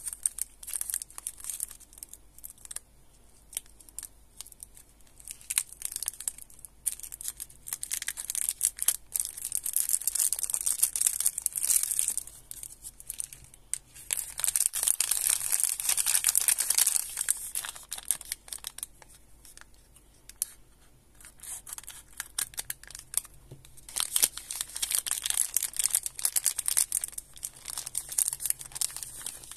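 Plastic candy wrappers being crinkled, peeled and torn open by hand: the clear wrapper of a lollipop and the foil pack of a chocolate wafer bar. The rustling comes in several crisp spells, with quieter handling clicks in between.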